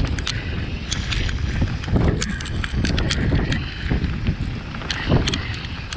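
Mountain bike ridden on a dirt woodland trail, heard from a bike-mounted camera: a steady rumble of tyres and wind buffeting on the microphone, with frequent sharp clicks and rattles from the bike over the rough ground.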